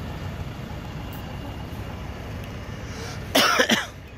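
A person coughing loudly close by, one short rough burst about three seconds in, over a low steady rumble of idling trucks and cars.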